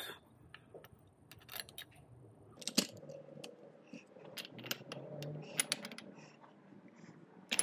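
Metal motor parts and a bracket handled by hand on a workbench: scattered small clicks and light knocks of metal on metal, the sharpest about three seconds in and another at the very end.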